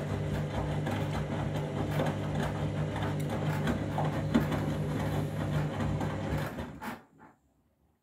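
Candy front-loading washing machine tumbling a load of laundry in soapy water: a steady motor hum with water sloshing and small knocks from the turning drum. The motor cuts off about seven seconds in as the drum stops, a pause in the wash tumble.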